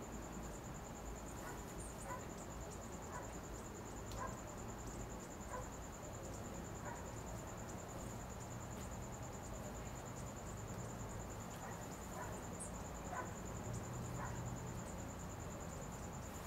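Cricket trilling steadily at a high pitch, with faint short chirps every second or so.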